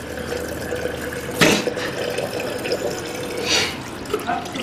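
Water running from a tap into a washbasin, with splashing as hands wash a person's face; a louder splash about one and a half seconds in.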